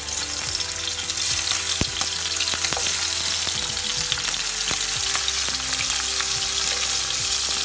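Tengra fish (small catfish) sizzling in hot oil in a non-stick frying pan as they are laid in to be lightly fried: a steady, dense frying hiss with many small spattering pops.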